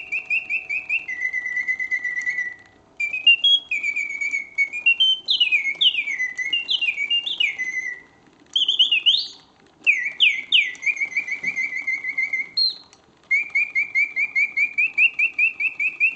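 Karl Griesbaum singing bird cage, its bellows-driven mechanical whistle playing imitation birdsong. Rapid trills held on one pitch alternate with quick rising swoops, in phrases with brief breaks between them.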